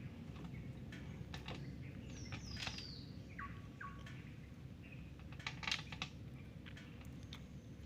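Faint bird calls over a low steady outdoor background: a falling whistle, then two short flat notes, with a few light clicks and knocks scattered through.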